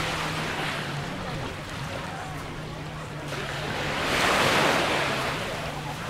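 Sea waves washing up on a sandy beach, with one wave swelling louder and breaking about four seconds in.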